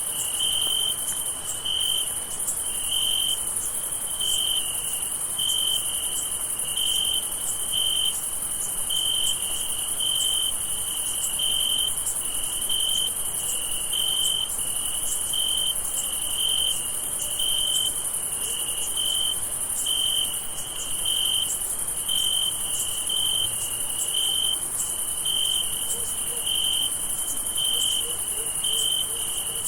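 Night chorus of crickets: one chirp repeats evenly over and over, over a steady high-pitched insect trill.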